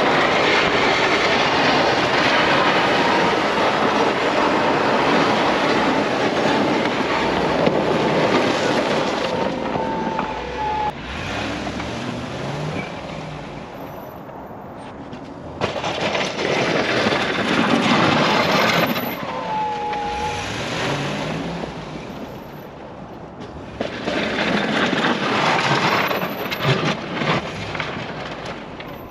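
Pickup truck's steel snowplow blade scraping hard-packed snow and ice down to the pavement, a loud grinding scrape over the truck's engine. The scraping comes in three spells, the longest at the start, with the engine revving up between them.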